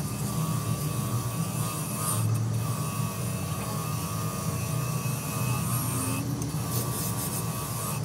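Bench grinder with a wire brush wheel running while a hydraulic jack's metal cylinder is pressed against it, scrubbing off paint and rust: a steady motor hum and whine under a hiss of wire on metal that eases briefly twice.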